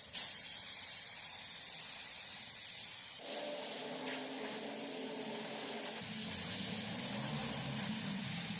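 Steady spray hiss that changes abruptly about three seconds and again about six seconds in.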